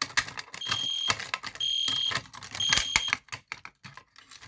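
Fire alarm horn strobe, an EST Genesis, sounding three short, evenly spaced high-pitched beeps, the temporal-three evacuation pattern. Around them come rapid mechanical clicks and clacks as the pull station is worked and reset.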